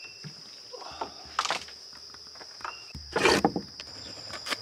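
Steady high insect drone of a summer garden, with a few short knocks and scuffs over it, the loudest about three seconds in.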